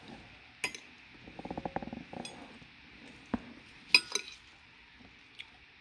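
Metal fork clinking and scraping against a ceramic dinner plate: a few sharp clinks, the loudest about four seconds in.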